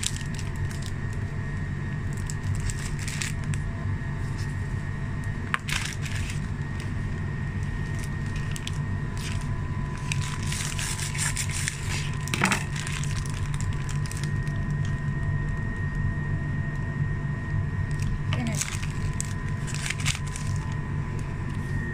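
Printed paper wrapper crackling and crinkling now and then as a wrapped chicken wrap is handled and set on a plate, busiest around the middle and again near the end. Under it runs a steady low machine hum with a faint high whine.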